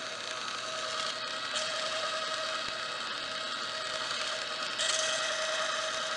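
Bolex magnetic striping machine running, its motor and belt-driven film transport whirring steadily with a faint held whine as it lays a magnetic sound stripe onto Super 8 film. The hiss briefly brightens about a second in and again near the end.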